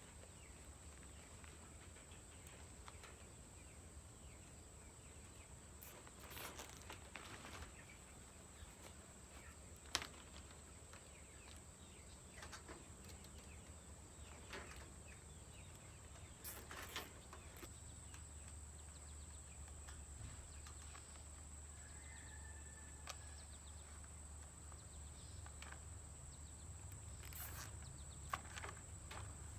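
Faint outdoor background with occasional light rustles and clicks over a steady high-pitched hum.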